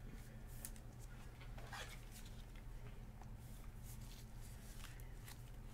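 Faint soft clicks and rustles of gloved hands handling a trading card in a clear rigid plastic holder, over a low steady hum.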